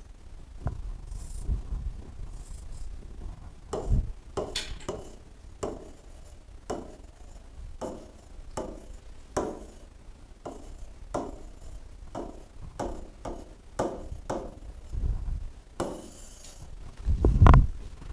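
Stylus tapping and rubbing on the glass face of an interactive touchscreen board as words are handwritten, a run of short strokes about two a second. A louder low thump comes near the end.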